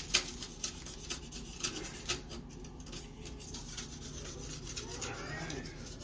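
Small metal clicks and scraping from a bathtub trip-lever drain assembly being handled, its overflow faceplate, lever and linkage knocking and rubbing together, most sharply at the start.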